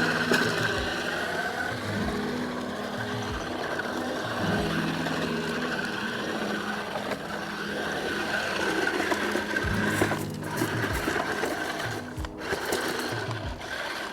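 Toy RC truck's small electric drive motor and plastic gearbox whirring with a steady high whine as it drives, dipping briefly twice near the end, over background music.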